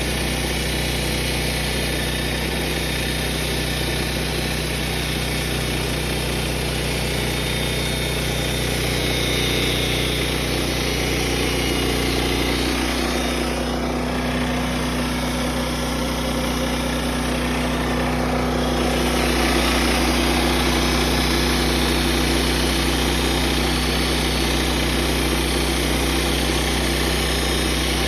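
Portable bandsaw sawmill's small gas engine running steadily, its engine note shifting somewhat about halfway through.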